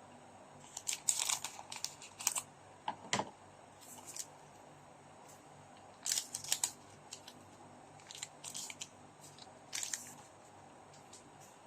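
Trading card packs and cards being handled: short crinkling and rustling sounds in scattered clusters, the loudest about a second in and again around six seconds.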